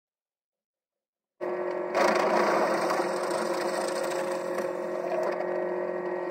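Benchtop drill press running, its bit boring into a birch plywood gear hub: a steady motor hum with cutting noise that starts about a second and a half in and grows louder about half a second later as the bit bites.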